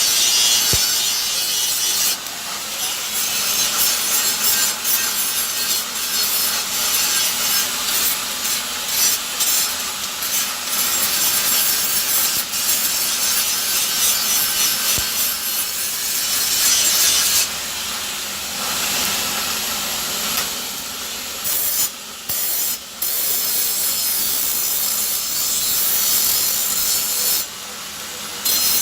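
Steady abrasive rasping of a workshop tool working material, with a few brief breaks near the end.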